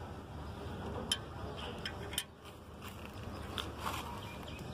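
Small sharp metallic clicks and taps, a handful of them spaced irregularly, as thrust washers are handled and seated against the crankshaft in a Caterpillar 3204 engine block. They sit over a steady low background noise.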